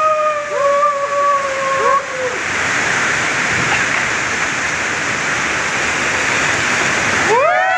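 Rafters yelling in long held shouts for about two seconds, then the steady rush of a waterfall and whitewater around the raft. Voices break in again just before the end.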